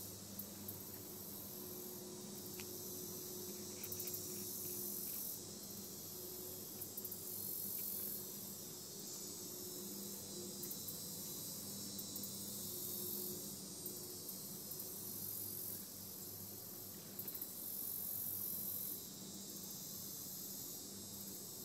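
Insects chirring in a steady high-pitched chorus that swells louder several times, for a second or two each time.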